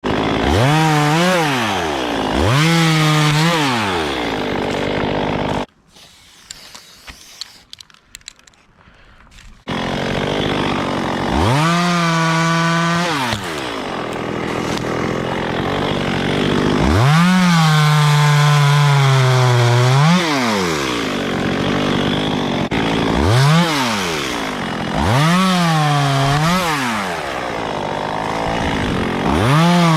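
Two-stroke chainsaw revving up and down in about seven bursts of one to three seconds, the longer ones held with the pitch sagging slightly, as when the saw works into wood. About a fifth of the way in the saw drops out suddenly for some four seconds, leaving only scattered clicks.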